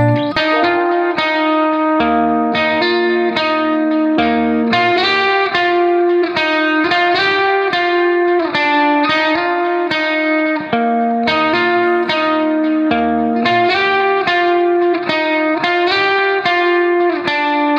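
Background music: guitar playing a steady run of plucked notes over a sustained chord.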